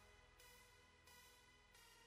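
Faint instrumental background music, a new chord sounding about every two-thirds of a second.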